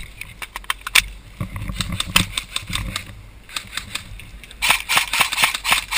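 Airsoft guns firing: scattered sharp clicks, then from about four and a half seconds in a close, steady run of about three shots a second over a rustling hiss.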